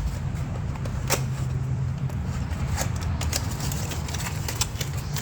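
Scattered short clicks and crinkles from a new PCV valve being unpacked by hand, over a steady low drone.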